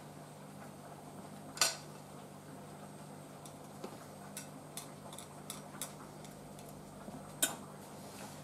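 Ceramic plates and chopsticks being handled, giving a few sparse, light clinks and clicks, the sharpest about a second and a half in and near the end, over a steady low hum.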